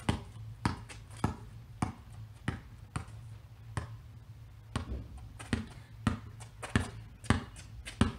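Basketball dribbled on a concrete driveway: sharp bounces about every half second, with a short pause near the middle.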